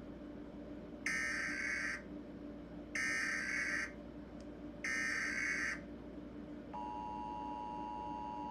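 Emergency Alert System SAME header: three short bursts of warbling digital data tones, about two seconds apart. About seven seconds in, the steady two-tone EAS attention signal begins.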